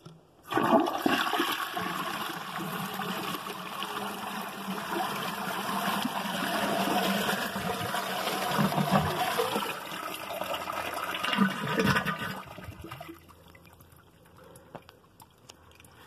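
A stack of toilets flushing in a chain: the top 2003 Vortens Vienna is flushed about half a second in, and water rushes down through the second Vienna and the old Crane Oxford below, with deep gurgles twice near the end as the bowls siphon out. The rush stops abruptly after about twelve seconds, leaving only a faint trickle.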